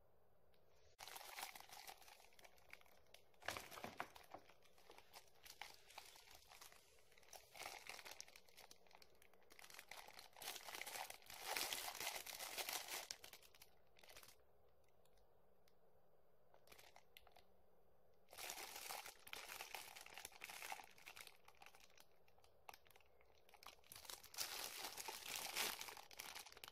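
Clear plastic wrapping crinkling as it is handled, in several irregular bursts with quiet gaps between.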